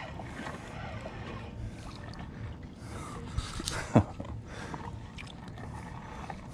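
Wind on the microphone and water lapping against the kayak, with one short splash about four seconds in as a hooked fish is pulled out of the water.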